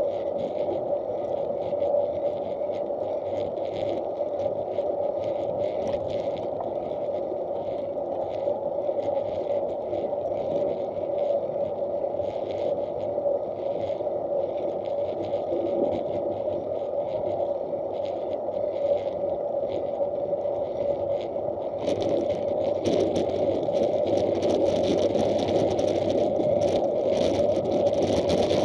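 Steady rolling noise of a bicycle's tyres on an asphalt path, with wind and vibration on the action camera's case and light scattered crackles. About three-quarters of the way through, a louder hiss joins it.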